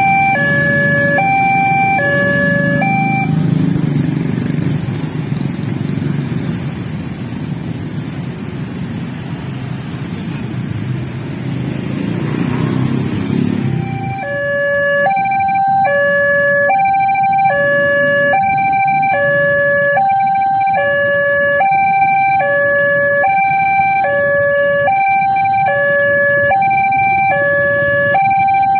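Railway level-crossing warning alarm sounding two alternating electronic tones, about one high-low cycle per second. It stops about 3 seconds in, leaving the low noise of motorcycles and cars moving off for about ten seconds, then starts again about 14 seconds in.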